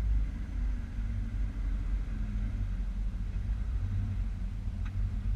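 Jeep Wrangler TJ running, a steady low rumble.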